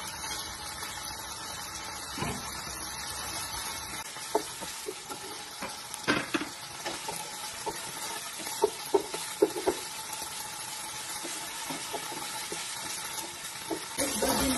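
Strips of chicken frying in hot oil in a nonstick pot, sizzling steadily while being browned, stirred with a wooden spoon that gives scattered short taps and scrapes against the pot. The sizzle gets louder near the end.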